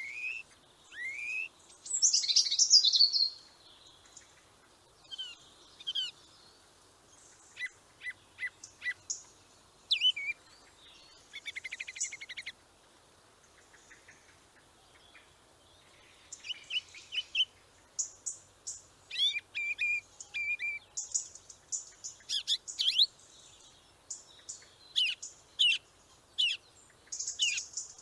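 Songbirds calling and singing: short, high chirps and rising whistled notes in irregular bursts, with a brief buzzy trill partway through.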